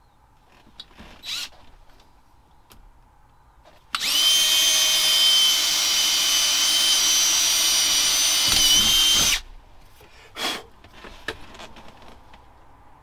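Cordless drill running at a steady high speed for about five seconds, drilling into the truck's dash switch panel, then stopping abruptly. A few light clicks come before and after.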